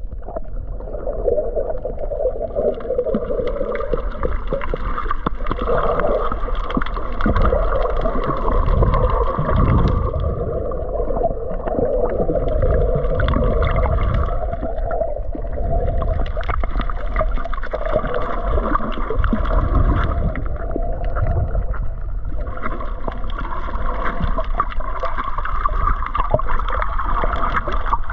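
Muffled underwater sound picked up by a camera held below the surface: rushing, gurgling water with a steady hum that drops out briefly a few times.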